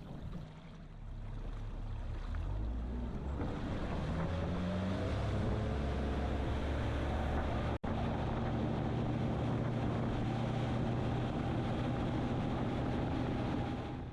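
Bass boat's outboard motor speeding up, its pitch rising over the first few seconds, then running steadily at cruising speed. The sound cuts out for an instant about eight seconds in.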